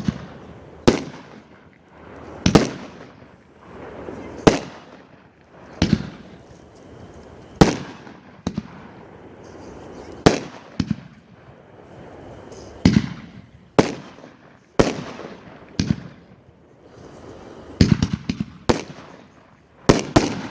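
World Class Hustler 500-gram consumer firework cake firing: a run of sharp bangs about one to two seconds apart, each trailing off, with a quick cluster of bangs near the end.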